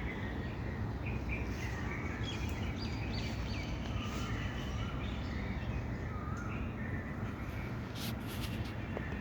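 Several small birds chirping and calling, short repeated notes and wavering whistles, over a steady low background rumble, with a few sharp clicks about eight seconds in.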